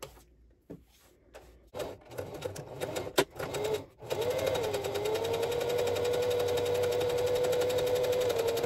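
Singer electric sewing machine stitching a seam: a few brief starts, then from about four seconds in it runs steadily with an even motor whine and a rapid clatter of needle strokes.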